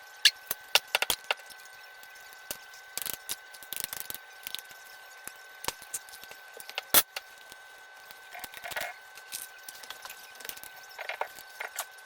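Irregular sharp clinks and knocks of hand tools and metal engine parts being handled while a Kohler CV16 small engine's crankcase cover is taken off, with one louder knock about seven seconds in. A faint steady high whine runs under it.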